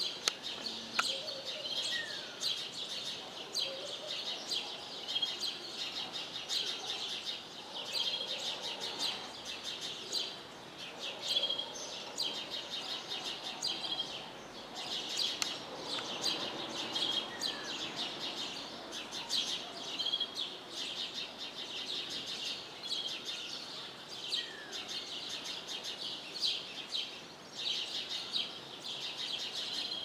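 Many small birds chirping together in a dense, continuous chorus of short, high chirps, with an occasional lower slurred note.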